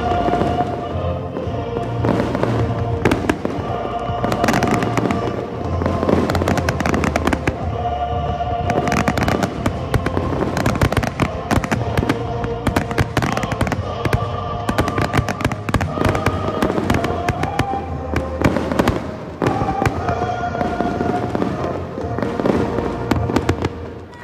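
Fireworks show: shells bursting and crackling in quick, dense succession, over loud music that the pyromusical display is set to.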